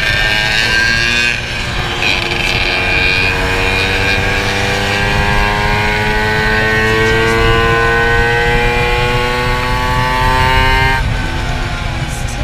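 Vespa 50 Special's two-stroke engine pulling hard under throttle, its pitch climbing slowly for about ten seconds and then dropping sharply near the end. Wind rushes over the onboard microphone throughout.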